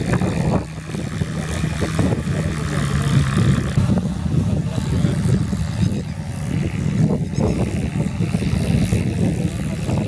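Sonalika Gardentrac mini tractor's diesel engine running steadily as its rear rotary tiller churns through flooded paddy mud.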